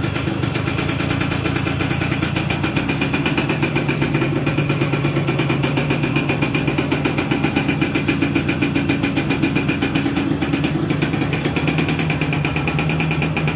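Yamaha Yaz 125 two-stroke single-cylinder motorcycle engine idling steadily, with a quick even pulsing beat.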